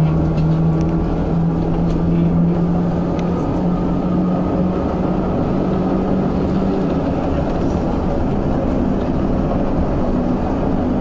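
Tram running along the track: a steady rumble of wheels on rails with a low motor hum that rises a little in pitch over the first few seconds, then holds steady.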